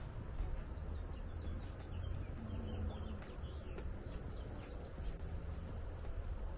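Birds chirping intermittently over a steady low rumble on the microphone.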